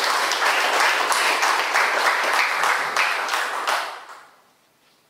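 Audience applauding in a hall, dense clapping that fades away about four seconds in.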